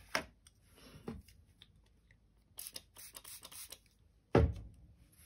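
Hands handling a watercolour palette and brush on a tabletop: soft scraping and rubbing with a few light clicks, then a dull thump about four seconds in.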